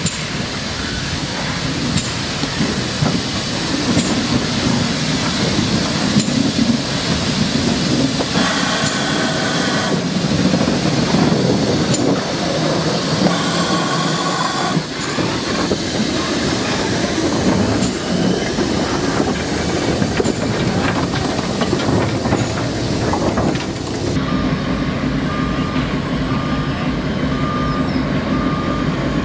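A train running, a continuous loud rumble and hiss with faint clicks. About 24 seconds in the sound changes abruptly: the high hiss drops away, leaving a lower rumble with a steady whine.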